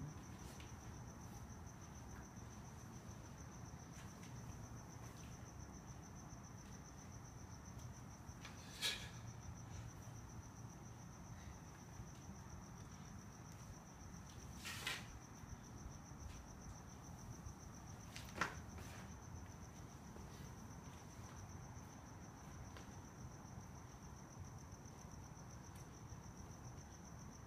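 Quiet room with a steady high-pitched whine over a low hum, broken by three short sharp clicks about nine, fifteen and eighteen seconds in.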